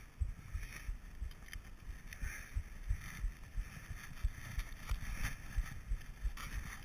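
Skis running through deep powder snow, a soft patchy hiss with many irregular low thumps and a few sharp knocks as the skier rides over bumps, picked up by a GoPro Hero2 carried on the skier.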